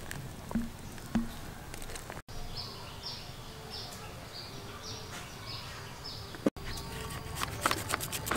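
A couple of sharp knocks, then a bird calling in short falling chirps about twice a second. Near the end, a knife chops through a raw purple sweet potato onto a wooden chopping board in a quick run of sharp clicks.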